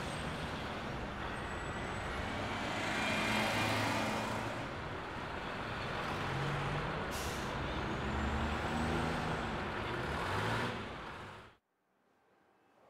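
Street traffic noise with heavy vehicles such as trucks and buses passing, swelling about three to four seconds in, with a short hiss about seven seconds in. It cuts off suddenly near the end.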